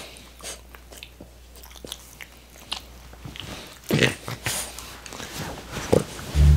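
A French bulldog chewing and mouthing: small wet clicks and smacks, with louder bursts about four seconds in and again near six seconds. Music starts just at the end.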